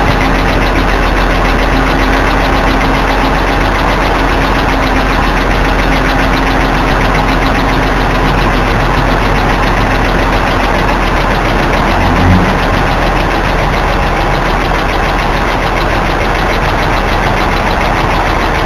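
BMW E46 323i's 2.5-litre straight-six idling shortly after start-up with a loud, fast, even ticking from the engine. A brief low thump sounds about twelve seconds in.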